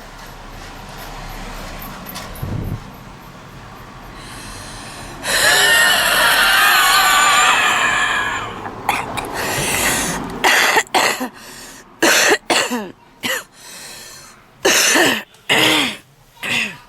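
A woman's heavy smoker's cough: about five seconds in, a long, loud wheezing breath with wavering whistle-like tones, then a run of short, hard coughs in quick succession.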